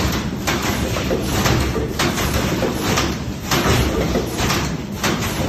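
An 8-lane stick pack machine filling and sealing chocolate paste sticks runs over a steady mechanical din. Its sealing and cutting strokes come as regular sharp clacks with a hiss, the strongest about every second and a half.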